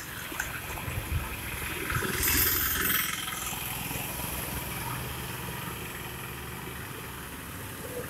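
Motorcycle engine running as it rides past on a street, loudest about two to three seconds in.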